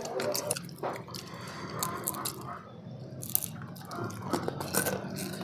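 Close-up eating sounds: people chewing and biting food, with spoons clicking and scraping against plates now and then.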